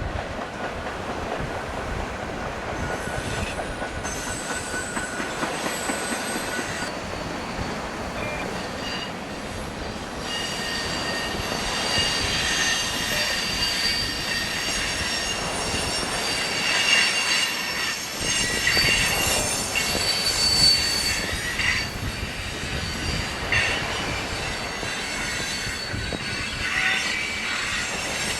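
Freight cars rolling past with steel wheels squealing against the rail in several high, shifting tones that come and go, strongest around the middle. A low rumble with wind buffeting the microphone runs underneath.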